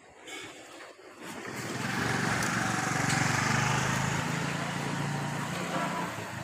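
A motor vehicle's engine passing close by: an engine hum that swells over the first two seconds, holds, and fades away near the end.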